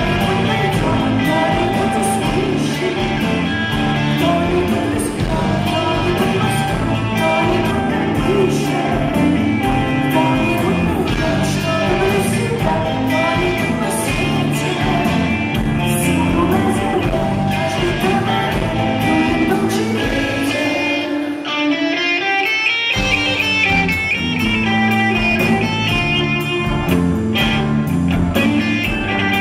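Rock band playing live, electric guitar over bass and drums. About twenty-one seconds in, the bass and drums drop away for a moment while higher notes carry on, then the full band comes back in.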